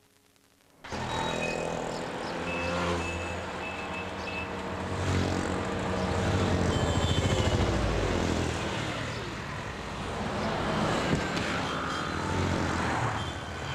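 City street traffic starting about a second in: car and motorcycle engines running and passing by, with one passing vehicle's pitch falling midway.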